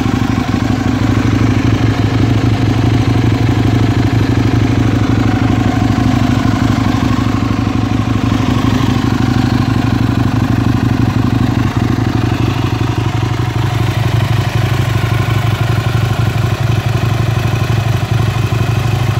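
Aprilia RSV 1000 Tuono's 60° V-twin engine idling steadily, without revving.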